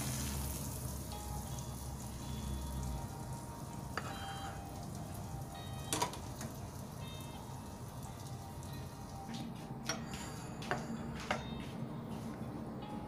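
Eggs frying in a pan with a light sizzle, mixed with background music; a few sharp clicks near the end.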